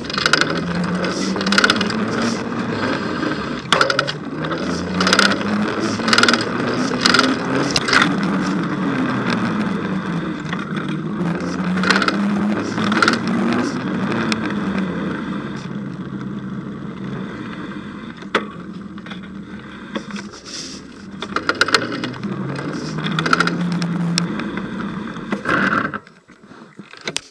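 Bicycle being ridden: tyre and drivetrain rolling noise with a hum that rises and falls in pitch as the speed changes, and frequent knocks and rattles over bumps. Near the end the noise drops away suddenly as the bike brakes to a stop.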